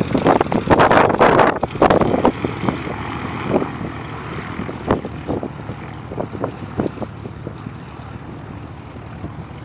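Engine noise of a C-5M Super Galaxy's four turbofans on final approach: a steady rumbling jet noise, rougher and louder in the first couple of seconds, then easing off a little.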